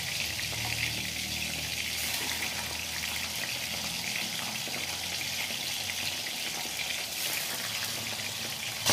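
Tofu and tempeh deep-frying in hot oil in an aluminium wok: a steady, fine crackling sizzle.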